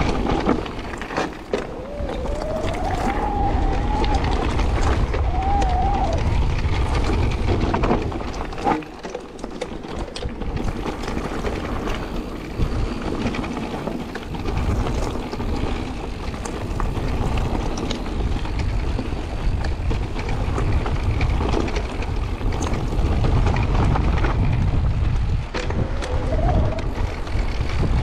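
Wind buffeting the action-camera microphone while an electric mountain bike rolls fast over a gravel singletrack, its tyres rumbling and its frame and parts clattering over the bumps.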